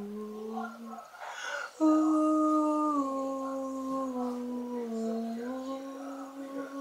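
A man humming a slow melody in long held notes that step gently down and back up in pitch, with a breath taken about a second in before a louder note.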